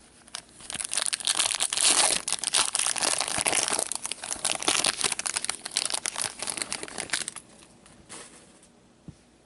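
Wrapper of a pack of trading cards crinkling as it is torn open and crumpled, a dense crackle lasting about seven seconds that stops near the end.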